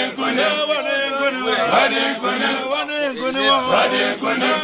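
A group of men chanting together, many voices overlapping with held and sliding notes.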